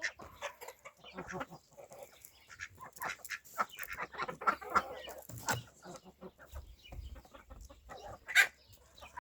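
Chickens clucking at feeding time among many short clicks, with one loud call about eight seconds in; the sound cuts off just before the end.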